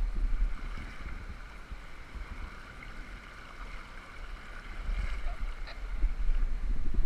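Fast river current rushing and splashing around a body-worn camera riding at the water's surface, with a heavy low rumble of water and wind buffeting the microphone. It eases somewhat in the middle and grows louder again near the end.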